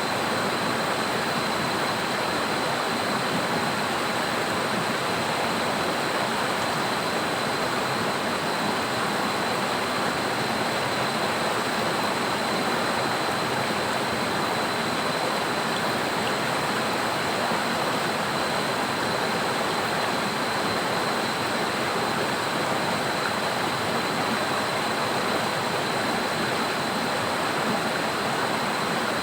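Steady, unbroken rush of water from heavy rain and a flooded river, with a thin, steady high tone running over it.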